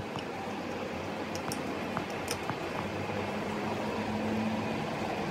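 Steady mechanical hum like a running fan, with a few faint metallic clicks of a wrench on the bolts of a steering gearbox cover as they are tightened.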